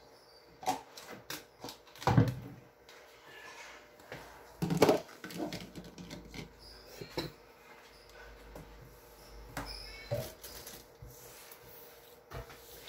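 A cloth wiping and rubbing a stainless steel sink and counter, with scattered knocks and clatters of handled things against the steel, the loudest about two and five seconds in.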